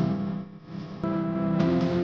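Background music led by guitar, with a change of notes about a second in.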